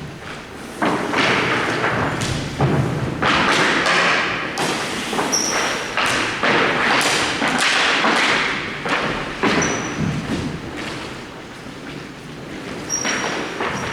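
Hockey play: sticks knocking and thudding in a dense run of sharp hits, with scraping between them.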